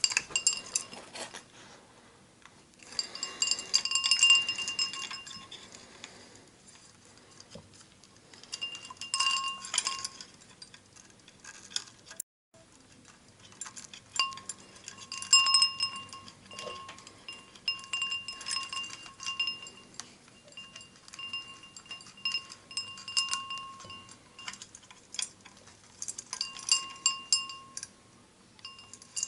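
Small metal parts of a ceiling fan light fixture clinking and ringing as they are handled during wiring, in short stretches with scraping and rubbing between them. The ringing comes back at the same few pitches each time. The sound cuts out briefly about twelve seconds in.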